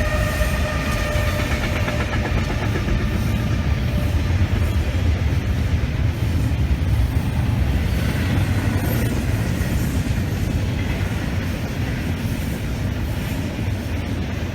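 A train rolling past with a steady rumble and wheel clatter on the rails. In the first second or two the last chord of a train horn fades out, dropping slightly in pitch.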